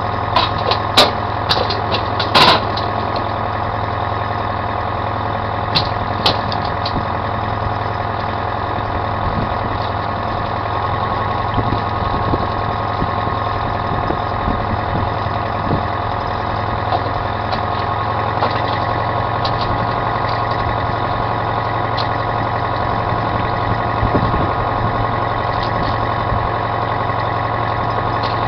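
Fishing troller's inboard engine running steadily at trolling speed, an even drone with several steady tones. A few sharp clicks and knocks in the first few seconds, the loudest about two and a half seconds in.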